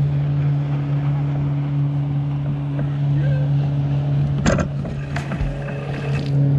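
A steady low engine drone runs throughout, and two sharp knocks come about four and a half and five seconds in.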